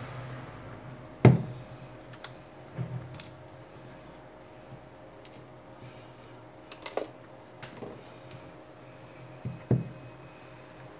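Sharp clicks and taps from a pry tool and fingers working on the opened Xiaomi Mi 8's internal parts and connectors, a few spaced seconds apart, the loudest about a second in. A faint steady hum runs underneath.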